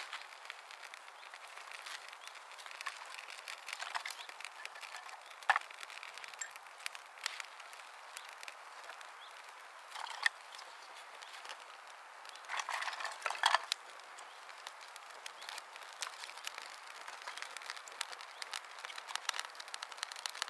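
Scattered small crackles and rustles, with sharper snaps about five and ten seconds in and a short cluster of louder crackling around twelve to thirteen seconds in.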